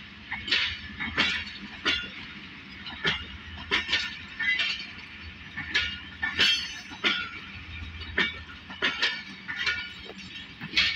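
Passenger coaches of a departing express train rolling past, their wheels clicking and clanking over rail joints in quick pairs, over a faint low rumble.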